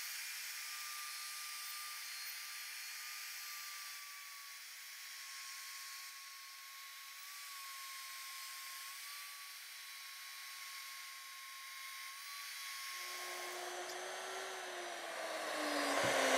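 Plunge router running at speed, its bowtie bit cutting a recess in hardwood along a template: a steady high whine, with the bit slightly dull. Near the end the whine stops and the motor winds down, its pitch falling steadily.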